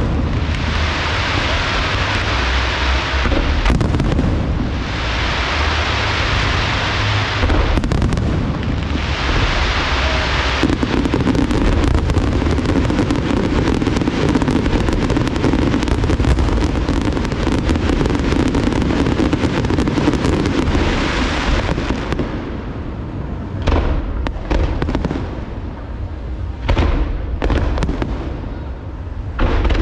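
Large aerial fireworks display: shells bursting in a dense, continuous barrage of booms and crackling, with waves of crackle in the first ten seconds. After about 22 seconds it thins out to separate, sharper bangs.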